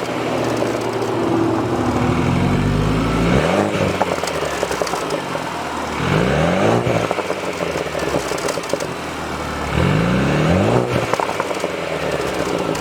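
BMW F30's exhaust, fitted with a single-exit pipe and a universal Mega Racing muffler, as the engine climbs in pitch and drops back three times, about two, six and ten seconds in.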